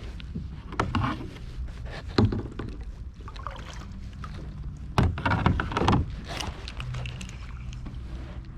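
A kayak being paddled: water splashing and knocks against the hull, in a few louder bursts about a second in, just after two seconds, and between five and six seconds in.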